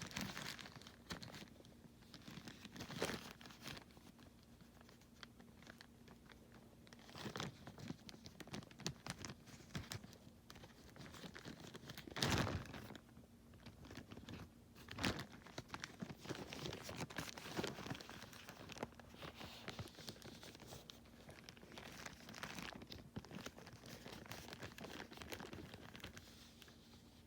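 Small plastic bags crinkling and rustling, with scattered light clicks of small plastic toys being handled, over a faint steady hum.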